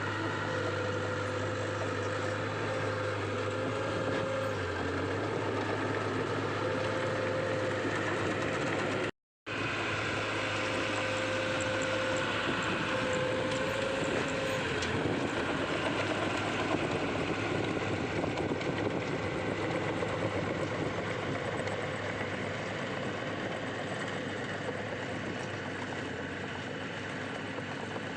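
Heavy diesel machinery engine running steadily, with a faint whine that comes and goes during the first half. The sound cuts out completely for a moment about nine seconds in.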